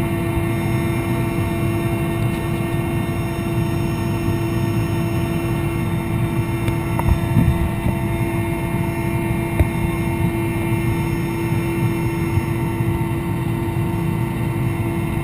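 Mil Mi-8 helicopter in flight, heard inside the cabin: its twin turboshaft engines and main rotor make a dense low rumble with a strong steady hum and several steady high whining tones.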